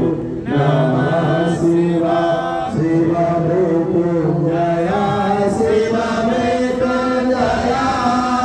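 Sanskrit mantras chanted as a continuous drawn-out recitation, with long held notes and more than one voice overlapping.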